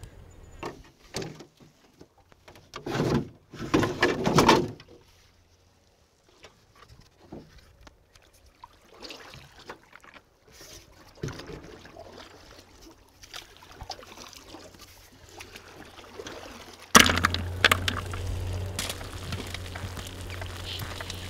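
Hot cooking water being poured off a metal pot of boiled long sea-snail shells, in two loud splashing gushes. Near the end a sudden louder rush starts and runs on steadily.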